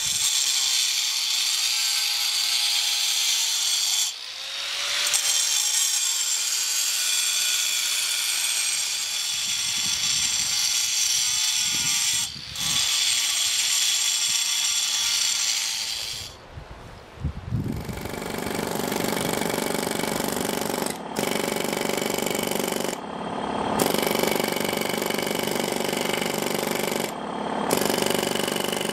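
Angle grinder cutting into stone with a high whine, stopping twice and spinning back up. About 17 seconds in it gives way to a pneumatic chisel (air hammer) rapidly hammering into the stone, carving in bursts with short pauses.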